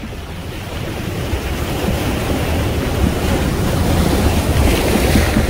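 Wind buffeting the microphone over rushing water: a loud, even rushing noise with a heavy rumble, growing steadily louder.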